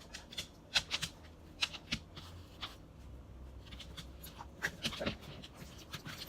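A dog licking and sniffing close to the microphone: irregular short wet clicks in small clusters.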